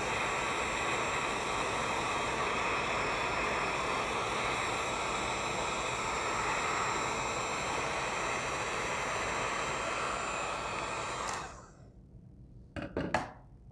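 Electric heat gun blowing hot air over vinyl wrap on a car grille bar: a steady rush of fan and air that stops abruptly about eleven seconds in. A few faint short knocks follow near the end.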